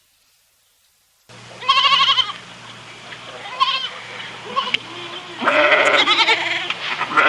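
Goats bleating: quavering, wavering calls that start abruptly about a second in and come in repeated bouts, louder and overlapping near the end.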